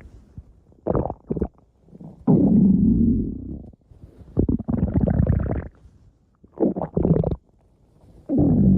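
A person's stomach growling: short quick gurgles alternate with three longer, low rumbles of a second or more, with quiet gaps between them.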